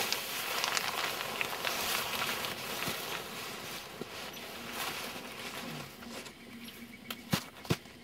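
Snow crunching and nylon jacket rustling as a person crawls on hands and knees into a low snow igloo; the scraping fades as he gets inside. Two sharp clicks near the end.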